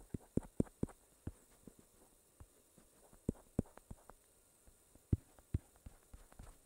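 Drawing on a tablet touchscreen: soft, irregular taps and knocks as strokes are put down on the glass, several a second and uneven in strength.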